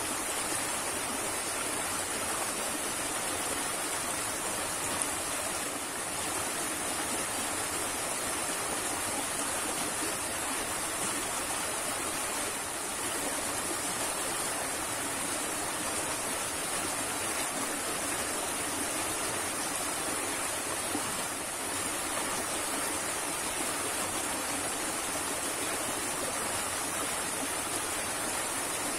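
Small stream rushing over rocks in a riffle: a steady, even rush of water.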